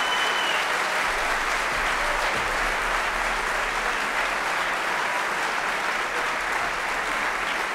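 Concert-hall audience applauding steadily, a dense, even clapping.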